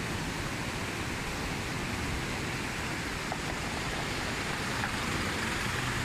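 Steady rushing noise of river water flowing under the bridge, mixed with wind on the microphone. A vehicle grows a little louder near the end as it passes close by.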